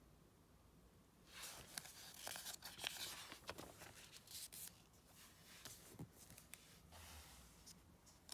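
Magazine pages rustling and crinkling as they are turned and smoothed flat by hand, starting about a second in, with irregular crackles and soft paper clicks.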